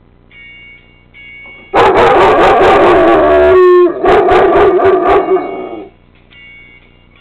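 German Shepherd howling loudly at close range for about four seconds, loud enough to hit full scale, with a break in pitch about halfway through. Faint pop music plays underneath, before and after the howl.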